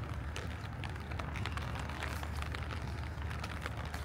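Light rain pattering close by as many small, irregular ticks, over a low steady rumble.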